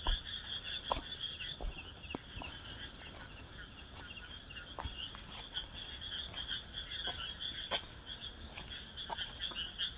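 Frogs calling in a continuous chorus, a high fluttering trill, with a few faint clicks and knocks.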